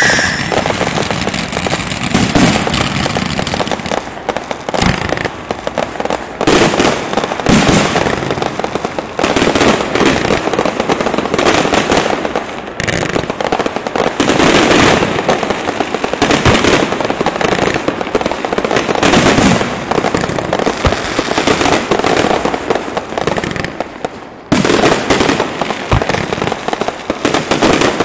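Fireworks and firecrackers going off in a dense, continuous barrage of rapid cracks and bangs, easing briefly about 24 seconds in before resuming at full strength.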